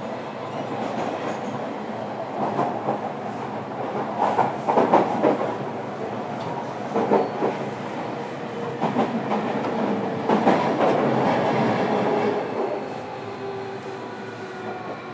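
JR Kyushu 305 series electric train running, heard from inside motor car MoHa 304-103: wheels rolling and clacking over rail joints, with several loud clacks in the middle. Near the end a thin motor tone from the Toshiba permanent-magnet synchronous traction motors falls slightly in pitch and the running noise eases as the train slows.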